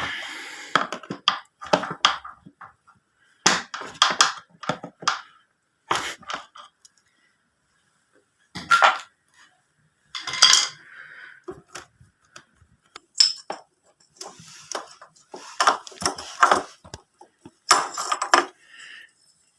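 Hand tools and metal parts clinking, clicking and knocking in irregular clusters, as a cover and the rectifier-regulator are worked off a Suzuki GS150 motorcycle.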